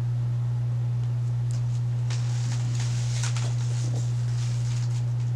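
A steady low electrical hum, with a few faint soft rustles of hair being handled on a curling iron about a second and a half to three and a half seconds in.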